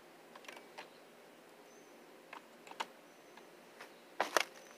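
Scattered light clicks and taps of a screwdriver working at an opened flat-screen TV's circuit boards and metal chassis, with a louder cluster of knocks about four seconds in.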